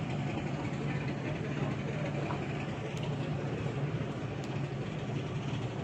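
Railway station background noise: a steady low hum from trains standing at the platforms, under a faint even rush.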